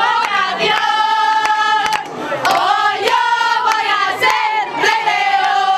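A group of young women singing together loudly, holding long notes and sliding between them, with scattered hand claps.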